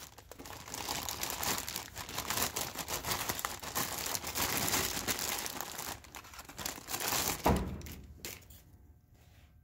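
Clear plastic bag crinkling and rustling as a new inverter (variable-frequency drive) is unwrapped from it by hand, with one sharp thump about three-quarters of the way through; the rustling dies away near the end.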